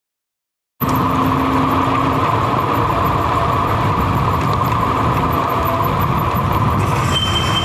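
A wireless mic's audio dropped out to dead silence cuts back in under a second in, at the edge of its range, bringing loud, steady wind and road noise from a moving scooter.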